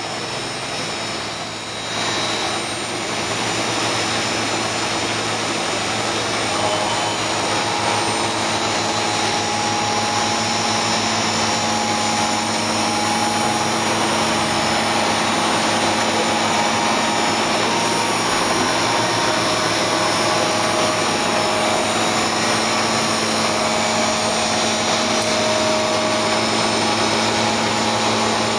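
BHS RP32 DSU32 industrial gearbox running on a test bench, driven by an electric motor with its oil pump on the housing. A steady mechanical whine with several held tones, which gets louder about two seconds in and then holds steady.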